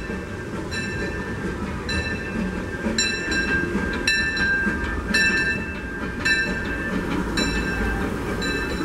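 Disneyland Railroad steam locomotive's bell ringing about once a second as the train approaches, over the low rumble of the train, which grows louder near the end as the engine rolls onto the bridge.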